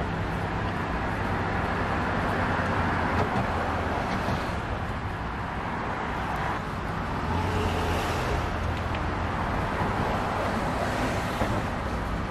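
Steady road traffic noise with a low, constant engine hum.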